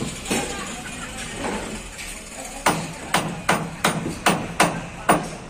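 Hammer blows on the timber frame of a wooden truck body. A few soft knocks at first, then from about halfway a steady run of sharp strikes, about three a second.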